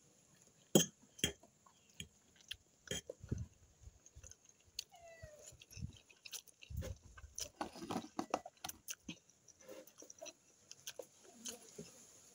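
A person eating spaghetti close up: irregular wet chewing and slurping of noodles, with a sharp clink of a metal fork on the glass plate about a second in and lighter fork clicks now and then.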